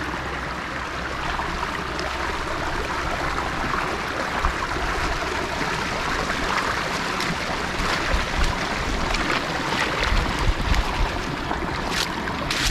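Floodwater rushing over a small waterfall, a steady hiss of falling water after heavy rain, with a few low bumps about two-thirds of the way through.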